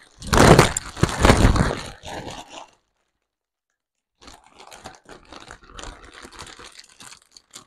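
Foil thermal cap crinkling as it is unfolded and pulled on over a head of hair. The crinkling is louder for the first couple of seconds, stops for about a second and a half, then goes on more softly as the cap is smoothed into place.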